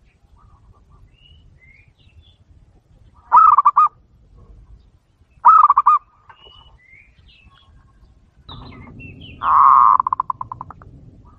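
Zebra dove (perkutut) cooing: two short pulsed coos about two seconds apart, then a longer coo that ends in a rapid stuttering roll and fades. This is the decoy call used to lure wild zebra doves. Faint chirps of small birds sound between the coos, and a low rustle runs under the last coo.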